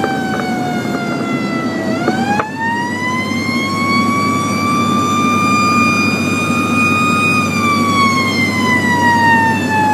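Fire engine siren wailing over the truck's engine drone, heard from inside the cab. The pitch slides down, jumps back up about two and a half seconds in, rises and holds high for a few seconds, then glides slowly down near the end.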